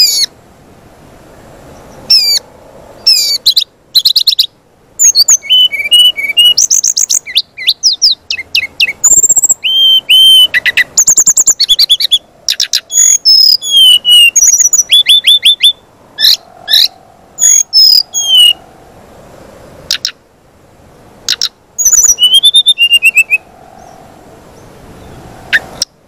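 Brown-chested jungle flycatcher (SRDC) singing: loud bursts of fast, high whistled notes, trills and rising and falling glides, in phrases of one to three seconds separated by short pauses.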